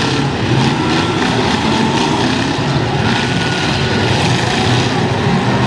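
Engines of several demolition-derby pickups and SUVs running and revving together, making a steady, loud din.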